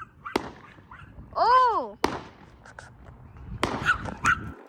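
Fireworks going off: several sharp bangs about a second or so apart over a low rumble. About a second and a half in, a short call rises and falls in pitch.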